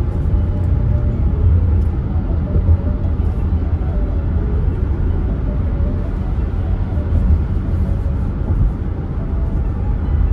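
Steady low rumble of tyre and engine noise heard inside a car driving at highway speed.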